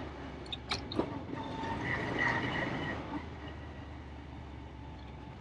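Single-cylinder Bajaj Pulsar motorcycle engine running steadily while riding along, with a few sharp clicks about a second in.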